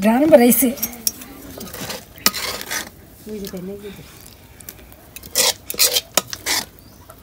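A utensil stirring thick pitha batter in a steel bowl, scraping and clinking against the metal. There are sharper knocks about two and a half seconds in and a louder cluster of them near the end.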